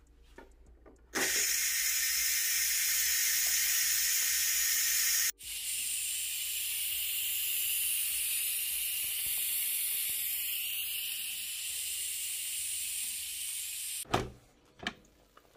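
Steam hissing from the pressure-release valve of a Ninja Foodi pressure cooker as the pressure built up during cooking is let out. The hiss starts suddenly about a second in, breaks off for a moment, then carries on, easing slightly, and stops near the end. Two knocks follow.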